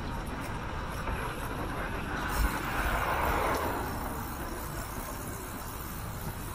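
Riding a bicycle along a paved cycle path: steady wind rumble on the microphone and tyre noise. About two seconds in, a rush of noise swells and fades over a couple of seconds, with a single thump near its start.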